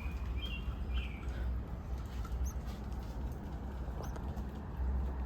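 A few faint, short, high-pitched peeps of baby birds in a nest, over a steady low rumble.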